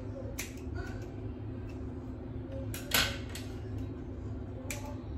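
Scissors snipping through a lock of wet hair: several short, sharp snips, the loudest about three seconds in, over a steady low hum.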